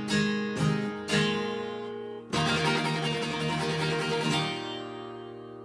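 Gibson acoustic guitar strummed: a few chords, then a last chord about two seconds in, strummed for a couple of seconds and then left to ring and fade away, closing the song.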